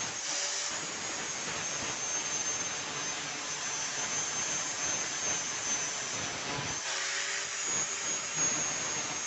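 Angle grinder with an abrasive disc grinding rust off a steel pipe wrench: a steady grinding hiss with a high motor whine on top.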